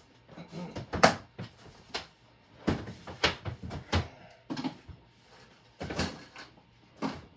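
Scattered knocks, clunks and rattles of someone rummaging through plastic storage bins on a shelving unit, with the sharpest knock about a second in.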